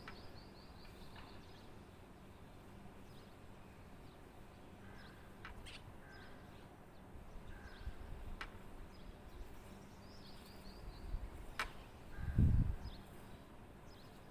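Outdoor ambience with birds calling: a quick run of short, falling high notes at the start and again about ten seconds in, with a few sharp clicks between. A low rumble, loudest about twelve seconds in, stands out over a faint steady hum.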